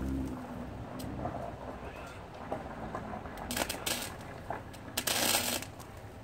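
Electric arc welder striking short tack welds on steel angle iron: two crackling bursts of about half a second each, the first about three and a half seconds in and the second about five seconds in.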